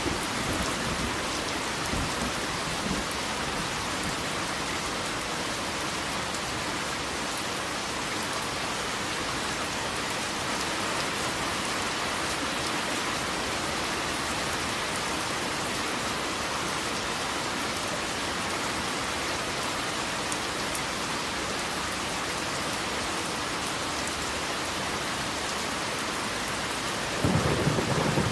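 Steady heavy rain falling, with low thunder rumbling in the first couple of seconds and rolling in again, louder, near the end.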